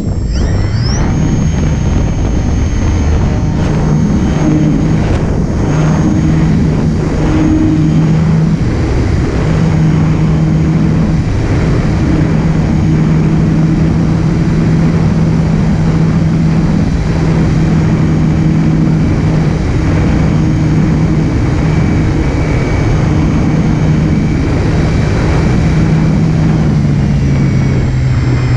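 Electric motor and propeller of a foamboard RC Spitfire, heard from the plane's own cockpit: it spools up about a second in, then runs at a steady hum with a thin high whine. The pitch steps down slightly near the end.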